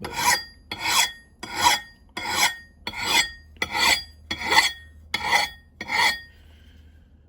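Hand file being pushed across the steel edge of an axe bit, rasping in about nine even strokes a little under a second apart, stopping about six seconds in.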